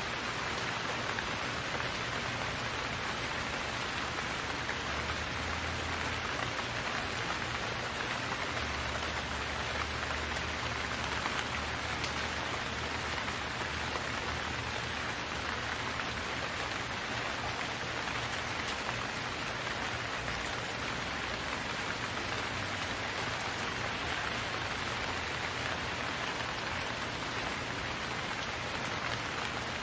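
Steady rainfall sound effect: a dense, even hiss of rain falling on a hard surface.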